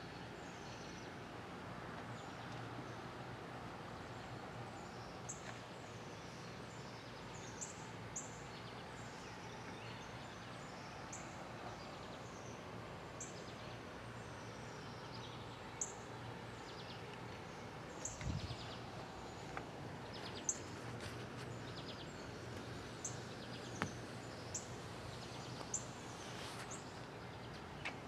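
Outdoor ambience: small birds give short, high chirps every second or two over a steady low hum, with one dull low thump about two-thirds of the way through.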